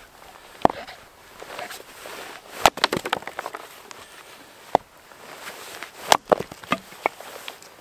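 Hatchet chopping firewood on a wooden splitting block: sharp single chops a second or two apart, some followed quickly by smaller knocks of wood.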